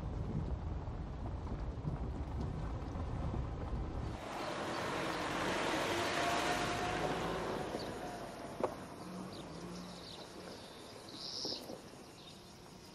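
A vehicle's engine rumbling low and steady, which stops abruptly about four seconds in. A rushing noise then swells and slowly fades, with a few faint high chirps near the end.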